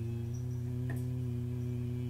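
Background music: a low sustained drone held steady, with a faint click about a second in.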